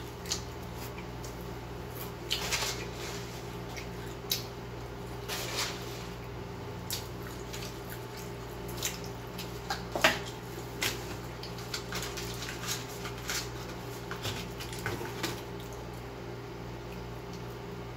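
A person chewing food with the mouth close to the microphone: wet chewing and lip smacks with scattered sharp clicks, over a steady low hum.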